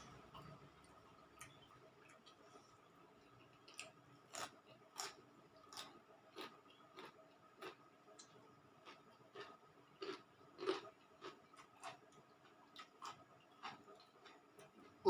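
A person chewing food with the mouth close to the microphone: quiet, irregular wet clicks and crunches, about one or two a second, starting about four seconds in, over a faint steady hum.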